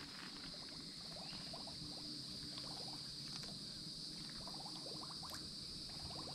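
Quiet pond-side outdoor ambience: a steady high-pitched hum with faint, scattered light ticks.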